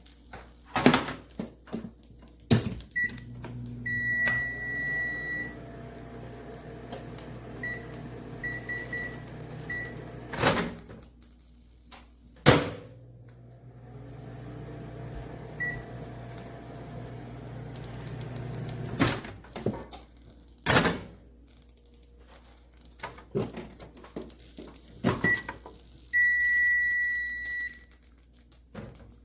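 Commercial Chef CHM990W countertop microwave oven being worked: sharp clicks of its door opening and shutting, keypad beeps, and a low steady hum while it runs, which stops briefly and starts again before cutting off. Near the end a long beep sounds.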